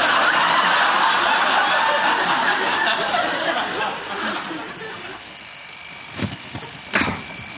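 Sitcom studio audience laughing after a punchline, the laughter fading away about four to five seconds in. A few short knocks follow near the end.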